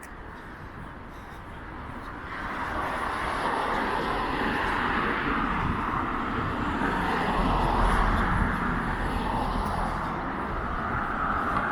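Aeroplane flying overhead: a steady rushing engine noise that swells about two seconds in and holds.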